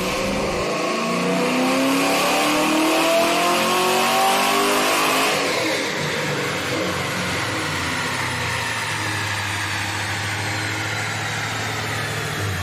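A 1996 Mustang Cobra's swapped-in 5.4 L DOHC V8 from a Lincoln Navigator, breathing through long-tube headers, making a full-throttle pull on a chassis dyno: the revs climb steadily for about five seconds. Then the throttle closes and the pitch falls away as the car coasts down, the engine settling to a low idle.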